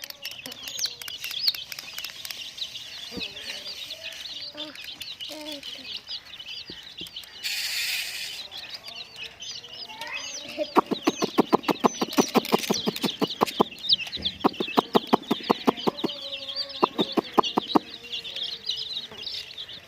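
Many baby chicks peeping together, a dense chatter of high chirps. About halfway, a fast, even run of clucking pulses, roughly five a second, goes on for several seconds, just after a brief rustle.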